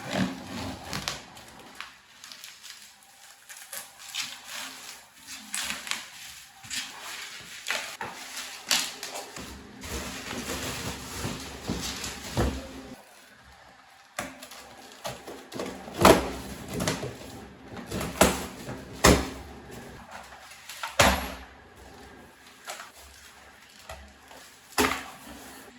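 Household handling sounds: irregular sharp clicks and knocks of objects being set down and moved, with a few louder knocks in the second half.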